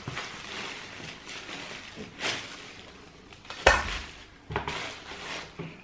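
A pair of trainers and their cardboard shoebox being handled during an unboxing: rustling, then a few short knocks, the loudest a thump about three and a half seconds in.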